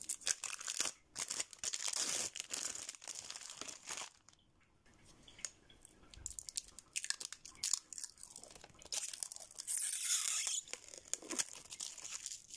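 Plastic packaging crinkling and rustling as a metal nail-stamping plate is unwrapped, then the plate's plastic protective film crackling as it is peeled off, with a longer tearing hiss about ten seconds in.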